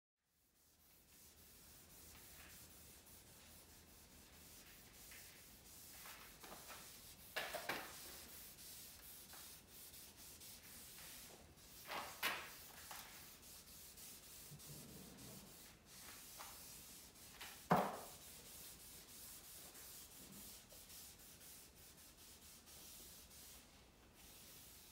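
Cloth rubbed over a walnut surface by a gloved hand, wiping on finish: a faint, steady swishing with louder scraping strokes about 7, 12 and 18 seconds in.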